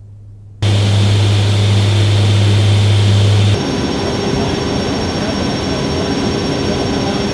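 Loud, steady aircraft noise of a KC-130J Super Hercules turboprop: a deep propeller drone under a hissing rush. About three and a half seconds in it switches abruptly to a different steady engine hiss with a thin high whine.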